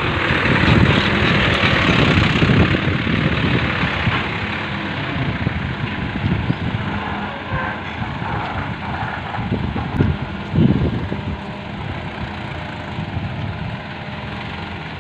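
Diesel engine of heavy equipment running steadily with a deep rumble, a little louder in the first few seconds and easing slightly after.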